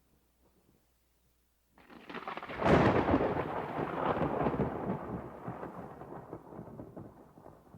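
A single thunderclap: after a couple of seconds of quiet it breaks in with crackling, peaks in a sharp crack about a second later, then rolls into a rumble that slowly dies away.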